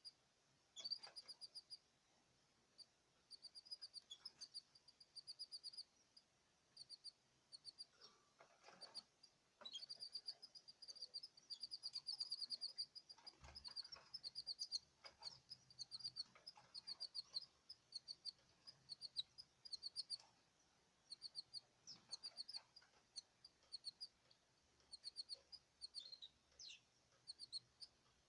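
Small cage birds chirping: runs of quick, short high notes, several a second, broken by brief pauses.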